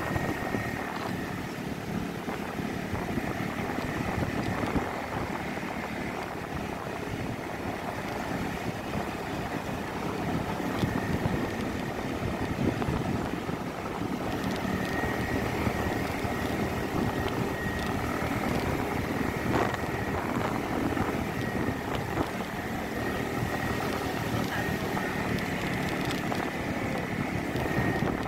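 Suzuki Address 110 scooter's engine running steadily under load as it climbs a hill, heard from the rider's seat.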